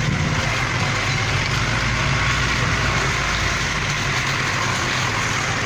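4x4 engines running at low speed on a dirt track, a steady low drone over an even hiss.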